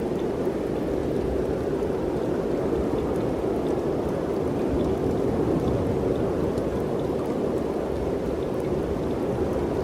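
Mountain wind blowing steadily, an even rushing sound with a low rumble and a few faint light ticks.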